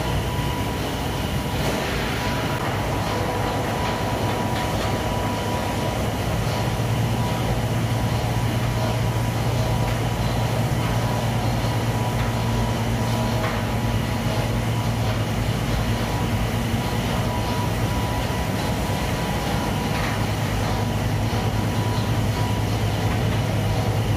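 Machinery of an automated industrial glove-washing line running: a steady mechanical rumble with a low hum that grows stronger about seven seconds in, and a thin steady whine above it.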